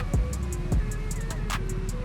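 Background music with a steady beat: a kick drum, regular hi-hat ticks and a short repeating plucked melody.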